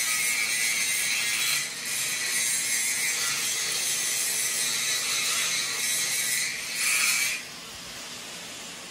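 Angle grinder grinding on a steel vehicle frame. It runs steadily with a brief dip about two seconds in and stops about seven and a half seconds in.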